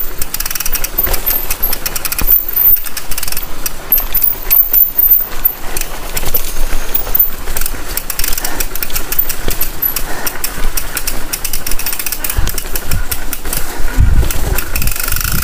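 Bicycle and its handlebar-mounted camera rattling and clattering as the bike rolls over a rough, rutted dirt path, with a steady stream of rapid knocks and a few heavier bumps near the end.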